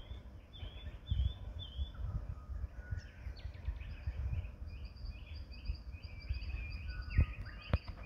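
Several wild birds calling at once: a short hooked call repeated three times in the first two seconds, then a run of short chirping notes and a fast, high twittering series through the middle. A low rumble runs underneath, and two sharp knocks come near the end.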